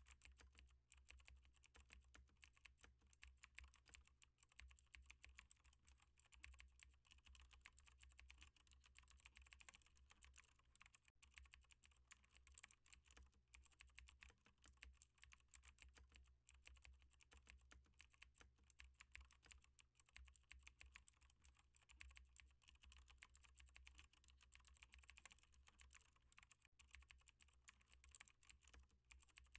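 Faint, continuous typing on a computer keyboard, many keystrokes a second, over a low steady hum.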